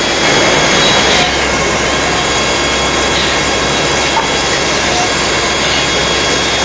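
INDEX CNC lathe running, a loud steady machining noise with a thin high whine over it; a low hum comes in about a second in and drops away about five seconds in.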